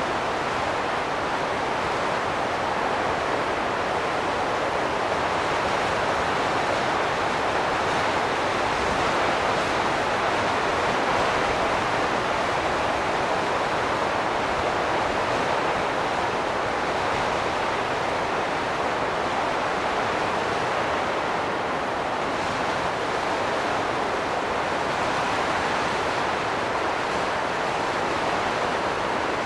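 Wind blowing in a steady, noisy hiss, swelling slightly about ten seconds in and easing again.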